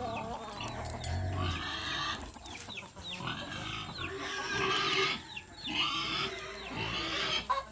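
Young boar piglets squealing in repeated bursts, with short gaps between them.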